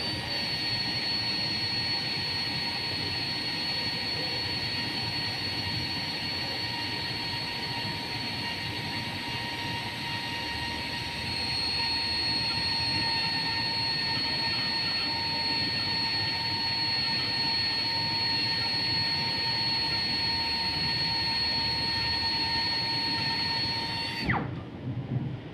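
High-speed rotary grinder running steadily with a high-pitched whine. About 24 seconds in it is switched off and its pitch falls quickly as it spins down.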